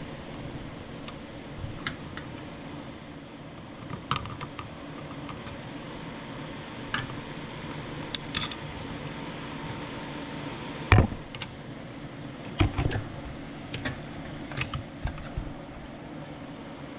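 Scattered small clicks and taps of tools and drone parts being handled on a workbench during soldering, with a louder knock about eleven seconds in and a few more near the end, over a steady low hum.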